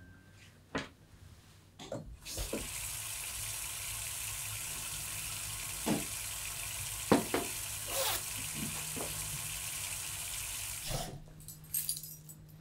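A cupboard door and a glass knock, then a kitchen tap runs steadily for about nine seconds, filling a drinking glass, with a few sharp knocks of the glass. The water is shut off abruptly near the end.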